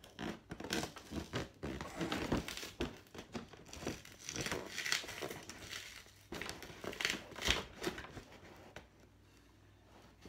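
Cardboard toy box with a clear plastic window being opened by hand: irregular crinkling and tearing of the packaging, coming in bursts and dying away near the end.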